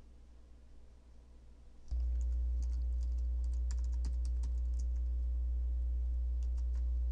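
Typing on a computer keyboard: a quick run of key clicks, then a few more near the end. A steady low hum comes in suddenly about two seconds in and stays under the typing.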